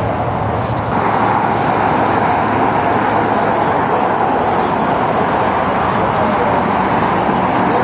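Steady road traffic noise: the tyre and engine hiss of cars passing on a multi-lane road, getting louder about a second in and then holding steady.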